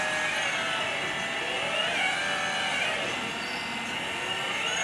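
Dual hydraulic pumps of a 1/12-scale metal Hitachi 360 RC excavator whining steadily, the pitch dipping and rising every second or so as the boom and bucket are worked.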